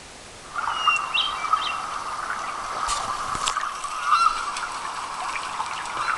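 A hailstorm heard through small laptop speakers: a thin, steady rush with scattered sharp ticks of hailstones, starting about half a second in.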